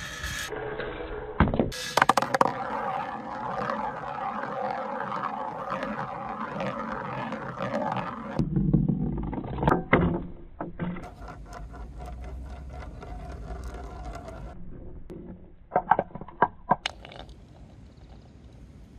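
A small rubber ball rolling down a long metal channel with a steady rolling rumble, then swirling round a large plastic tub with a deeper rumble. Near the end, a few sharp knocks as it drops into a wooden bowl and hits another ball.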